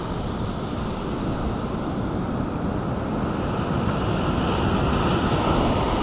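Ocean surf churning and washing against the rocks below, with wind buffeting the microphone; the wash swells slightly louder toward the end.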